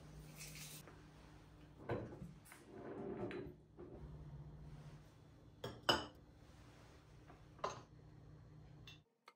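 Glass oil cruets and grinders being handled and set down on a table: a few light knocks and clinks, the loudest about six seconds in, over a faint low hum.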